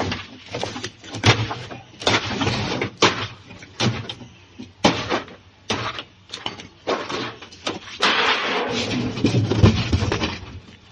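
A scrap refrigerator's metal body being broken apart by hand: irregular knocks and clanks, about two a second, then a longer rasping, scraping stretch about eight seconds in.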